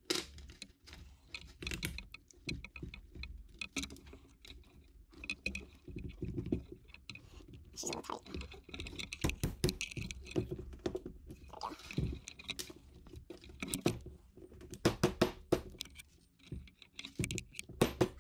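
Irregular clicks, knocks and scrapes as a Teamgee H5 electric skateboard hub motor is forced onto its truck axle by hand, a tight fit without grease. The knocking grows busier about halfway through and again near the end.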